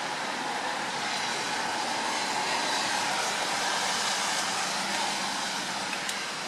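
Strong wind and rain: a steady, even rushing hiss with no let-up.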